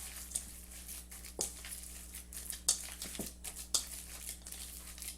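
Hands squishing and working a raw ground turkey meatball mix in a bowl: irregular wet squelches and light crackles, with a faint steady hum underneath.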